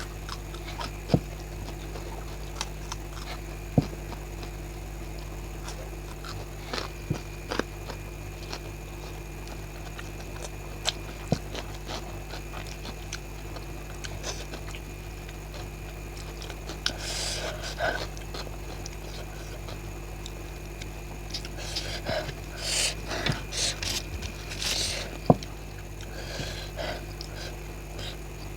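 Close-up eating sounds of raw green chillies and boiled eggs: sharp crunching bites scattered throughout, with louder bursts of chewing and mouth noise about two-thirds of the way in and again near the end. A steady low hum runs underneath.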